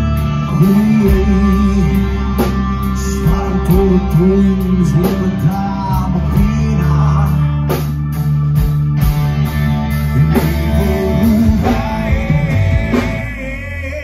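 Live rock band playing an instrumental passage through the stage PA: electric bass, electric guitar and drum kit with steady cymbal hits.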